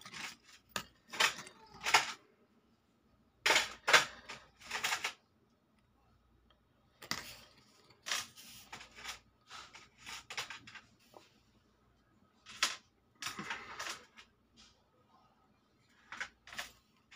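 Irregular short clicks and rustles from gold earrings being handled on sheets of paper: picked up, turned over in the fingers and set down again, in several bursts with quiet gaps between.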